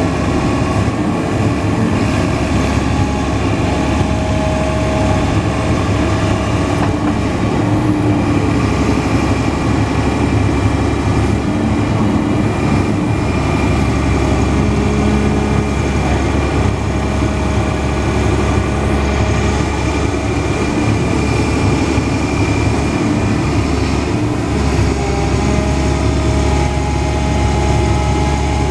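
Cat 320D hydraulic excavator's diesel engine running steadily while it digs, with steady whining tones that come and go as the hydraulics work.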